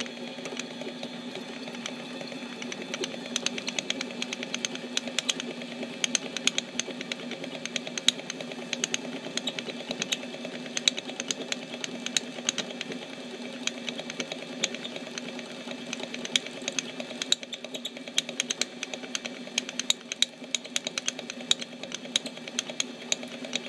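Mini metal lathe running with a steady hum while a tap in the chuck hobs teeth into a bolt turning in a hobbing jig, with a rapid, irregular clicking rattle throughout. The setup vibrates a lot, which the machinist takes to mean it is not making a great cut.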